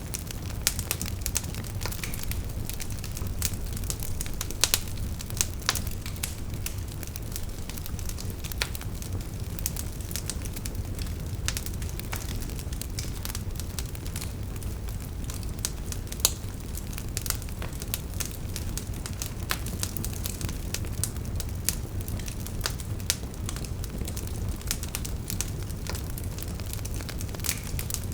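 Bonfire burning, with a steady low rumble of flame under frequent irregular crackles and pops of burning wood.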